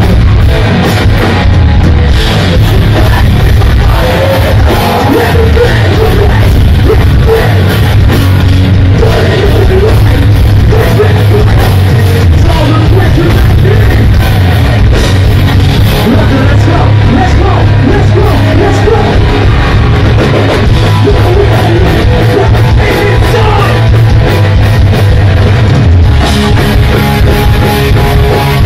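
Live hardcore punk band playing loud and without a break: distorted electric guitars, bass and drums under shouted vocals.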